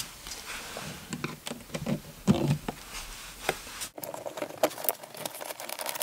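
Scattered light clicks and rattles of handling. From about four seconds in, a run of quick clicks and scrapes as an old modular plastic wall outlet is worked out of the wall by hand.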